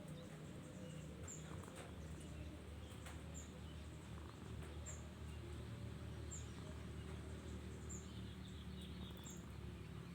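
Sleeping cat snoring faintly, a steady low snore that swells and eases with its breathing. A short high chirp recurs about every second and a half.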